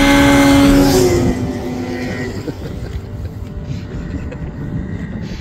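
Snowmobile engine running at speed as the sled passes close by: loudest at first, its pitch drops slightly about a second in, then it fades as the machine moves off.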